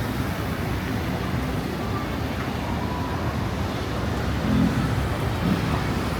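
City street traffic: a steady low rumble of passing cars, with a brief louder sound about four and a half seconds in.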